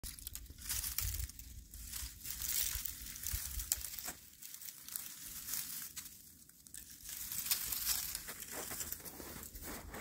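Dry grass bird's nest and brittle dead stems rustling and crackling in irregular bursts as a hand grips the nest and pulls it free from a shrub.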